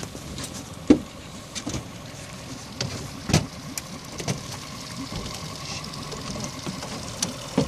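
Yamaha 9.9 outboard motor idling steadily, with a few sharp knocks and clicks over it, the loudest about a second in and another at about three and a half seconds.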